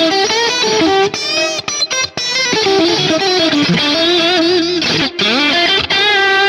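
ADOLA Primal Drip series electric guitar playing a single-note lead line, with string bends, slides and wide vibrato on held notes. The phrases are split by a few brief gaps.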